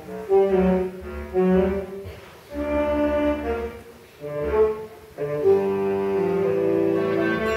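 School concert band of woodwinds and brass playing held notes in phrases, with brief quieter dips between them and a long sustained phrase near the end.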